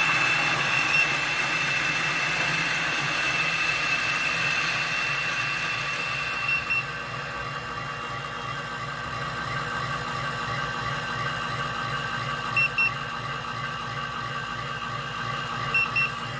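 Weber Key electric burr coffee grinder running and grinding a dose of beans: a steady motor whine with a high tone over a fast low pulsing, easing a little in level as the grind goes on, with two brief pairs of chirps near the end.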